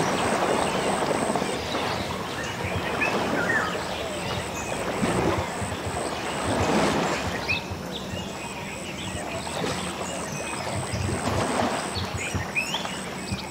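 Water sloshing and splashing around Asian elephants bathing submerged up to their heads, swelling a few times.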